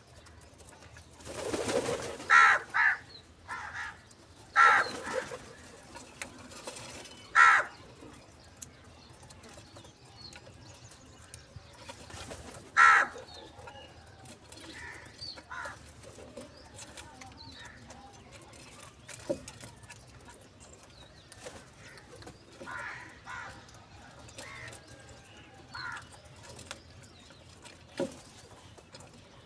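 Crows cawing: a few loud, short caws in the first half, then fainter calls scattered through the rest.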